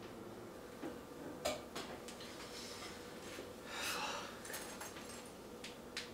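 Sweeping up debris from a floor into a plastic dustpan with a broom: a few light clicks and taps, then a short brushing swish about four seconds in.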